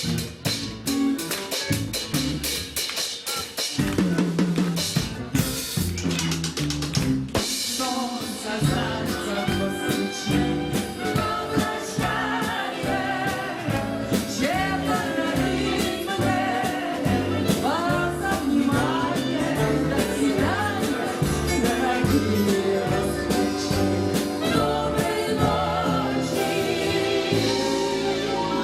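A song with a drum kit beat and instrumental backing, with a voice singing over it from about eight seconds in.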